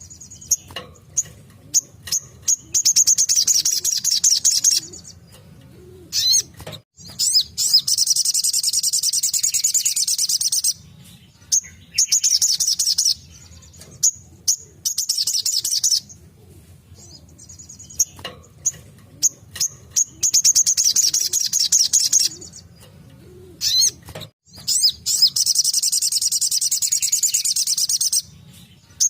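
Spiderhunter (sogok ontong) singing its rapid 'tembakan' song: bursts of fast, high-pitched trilling a few seconds long, about six of them, separated by short single chirps. A faint low hum runs underneath.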